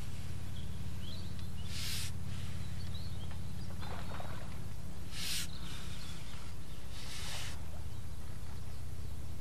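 Outdoor ambience with a steady low rumble, a few faint bird chirps, and three short hissing noises about two, five and seven seconds in.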